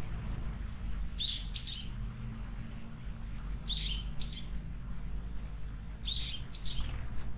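A wild bird calling: a short phrase of a falling high note and a couple of quicker notes, repeated three times about two and a half seconds apart, over a steady low rumble.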